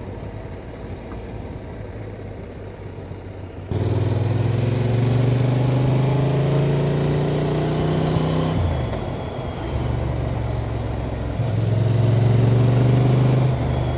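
Honda Transalp motorcycle engine, quiet at first, then suddenly louder about four seconds in as the bike rides on, its pitch rising slowly as it accelerates. The pitch drops briefly near nine seconds, then the engine runs on steadily.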